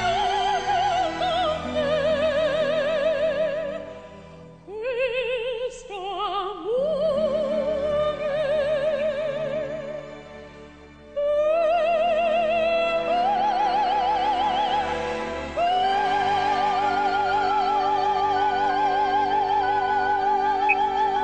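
Female soprano singing a ballad in Italian over orchestral accompaniment, long notes with wide vibrato. After two quieter moments the music swells back in suddenly, and near the end the voice holds one long high note.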